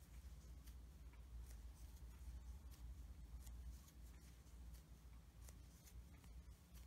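Near silence: faint rustling and light irregular ticks of yarn being worked with a crochet hook, over a low steady hum.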